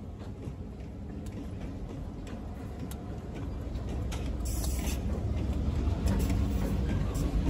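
Approaching freight train's EMD GP38-2 diesel locomotives, 16-cylinder two-stroke engines, making a low rumble that grows steadily louder as the train nears.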